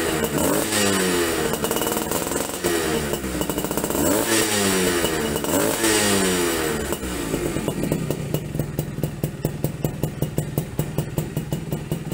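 Yamaha V80's two-stroke single-cylinder engine, breathing through an aftermarket racing exhaust, revved in several quick throttle blips that each fall back, then settling to a steady idle for the last few seconds.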